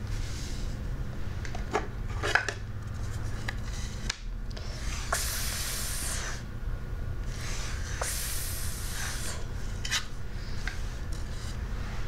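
Fingertips rubbing over the sandpaper of Montessori sandpaper letter cards, with two longer scratchy strokes, and light taps and knocks as the cards are handled and set down on the table.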